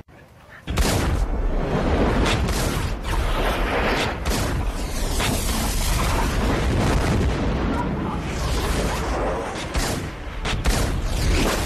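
A loud, dense soundtrack with a constant deep bass and many sharp hits, starting abruptly just under a second in.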